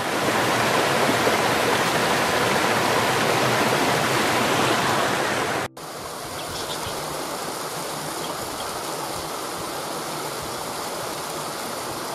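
Water of a rocky stream rushing and splashing over small cascades. It is a steady hiss. About halfway through it cuts out for an instant and returns as a slightly quieter stretch of running water.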